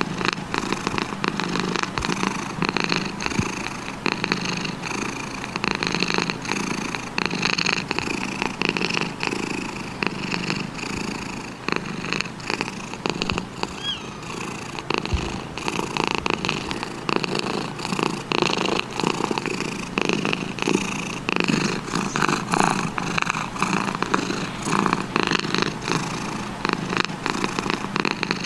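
Domestic cat purring steadily and without pause, a continuous fast rumbling pulse.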